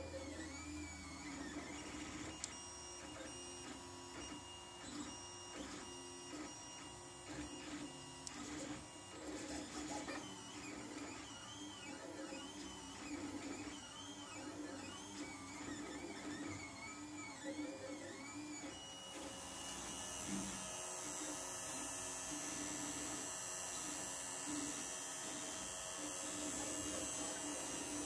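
Lulzbot TAZ 3 3D printer running a print, its stepper motors whining in quickly shifting, wavering pitches as the print head and bed move. About two-thirds of the way in, a steady high hiss joins the motor sound.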